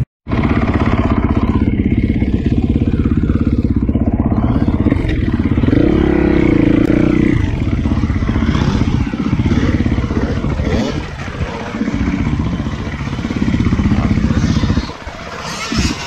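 250 motocross bike engine running on track laps, rising and falling with the throttle, with two brief let-offs near the middle and near the end.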